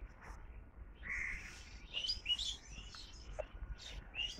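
Birds chirping in a string of short, high calls, over a faint low rumble.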